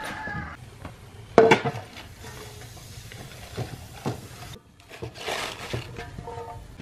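Cabbage leaves being handled in metal cooking pots and bowls, with scattered clinks and knocks of cookware; the loudest, a sharp knock, comes about a second and a half in.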